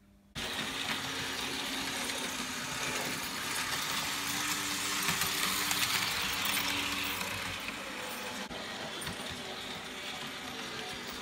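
Märklin model train running on the layout's metal track: a steady clatter of wheels with a low motor hum. It starts abruptly just after the start and is loudest about halfway through as the train passes close by.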